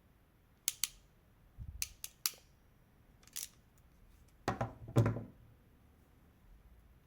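Hand crimping pliers clicking as a female Dupont connector is crimped onto a thin cable: a string of sharp metallic clicks, then two louder clunks about two-thirds of the way in as the jaws close on the crimp.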